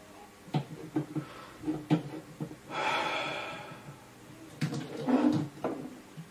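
A man's frustrated sigh and breathy groans over a few light knocks and clicks of handling. The longest sigh comes about three seconds in and lasts over a second.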